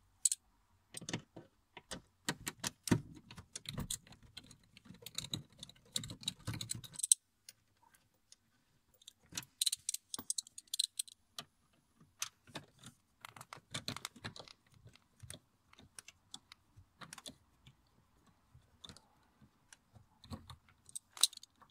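Phillips screwdriver turning out the screws of a car's lower dashboard trim: a run of irregular light metallic clicks and ticks, with some low handling noise in the first several seconds.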